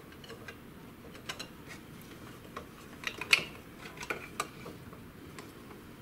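Scattered small clicks and taps of hands handling the plastic print carriage and parts of an inkjet printer, the sharpest about three seconds in.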